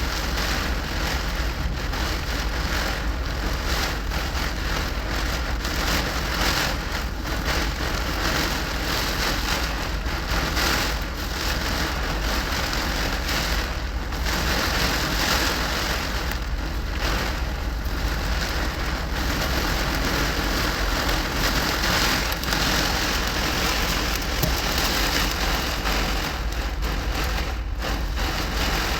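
Heavy wind-driven rain beating steadily on a truck cab, heard from inside, with a constant low rumble underneath.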